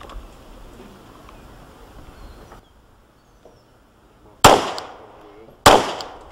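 Two 9 mm pistol shots about a second apart, each a sharp crack with a short decaying tail.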